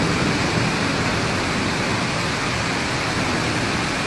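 Steady rushing of water: a loud, even noise with no distinct events.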